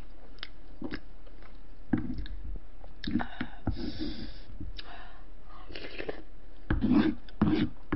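Close-up eating sounds: a spoon scooping in a wooden bowl, then chewing and wet mouth noises as a spoonful is eaten. There are scattered short clicks, growing denser about seven seconds in.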